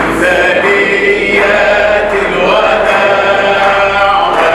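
A man's voice chanting a religious song through a microphone, holding long drawn-out melodic notes that bend from one pitch to the next.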